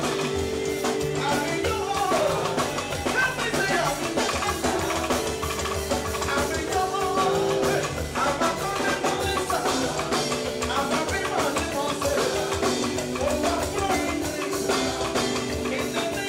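Live gospel music: a band with drums and a steady beat, with singing over it.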